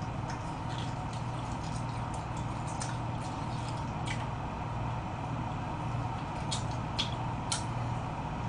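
Person gnawing and chewing on a braised pig's trotter held in the hands: scattered soft clicks and mouth smacks, over a steady low hum.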